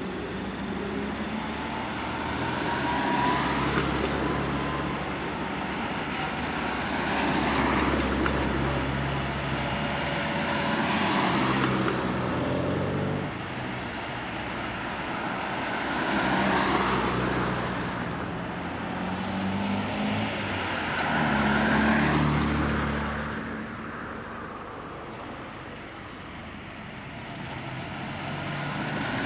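Classic Mini cars driving past one after another, about five in turn, each engine growing louder and then fading as it goes by.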